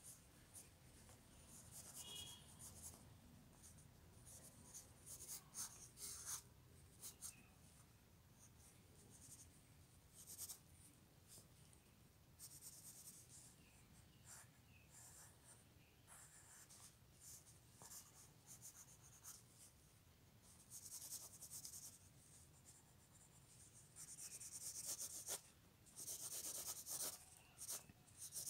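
Pencil scratching over paper in short, irregular sketching strokes, faint, growing denser and longer in the last third.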